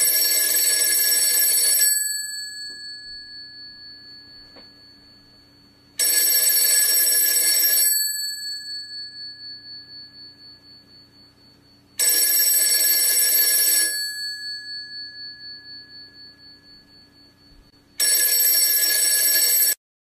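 Telephone bell ringing: four rings of about two seconds each, spaced six seconds apart. After each of the first three, the bell rings on and fades slowly. The fourth ring stops abruptly.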